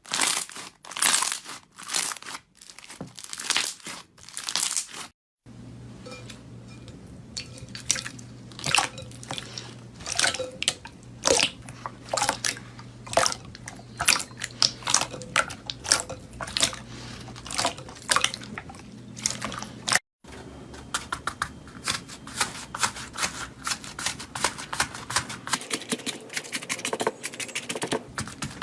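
Hands squeezing and poking slime, giving crackling, crunching strokes at first, then a long run of sharp clicks and pops over a low steady hum. The sound breaks off abruptly twice.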